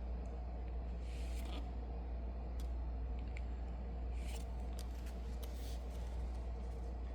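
Yu-Gi-Oh trading cards being handled, with a few soft sliding scrapes and faint ticks, over a steady low electrical hum.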